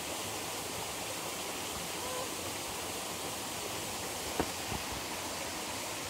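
Steady rush of water from a small waterfall and its stream, with two brief knocks about four and a half seconds in.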